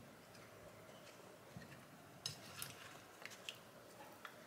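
Near silence, with a few faint soft taps as raw potato slices are laid into a roasting pan.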